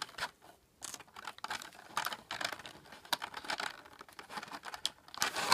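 Clear plastic wrapping crinkling and crackling in small irregular clicks as small figure parts are pulled out of it and handled, with a louder click near the end.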